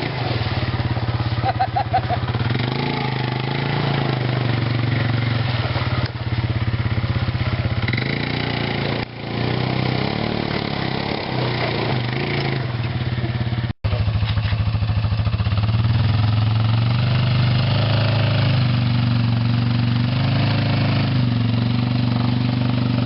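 ATV engine running at a fairly steady speed, its pitch stepping up and down a little as the throttle changes. The sound cuts out for an instant about two thirds of the way through.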